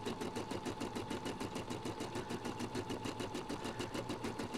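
Brother Innovis 990D embroidery machine stitching out an outlined name, its needle working in a fast, even rhythm of several strokes a second over a steady hum.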